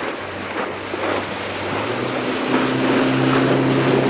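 Boat engine running over the splash and wash of choppy water; about halfway through its note rises and it gets louder, then holds steady as the boat picks up speed.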